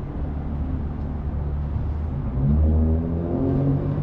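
City street traffic with a steady low engine hum. About two and a half seconds in, a vehicle's engine rises in pitch as it accelerates, the loudest moment.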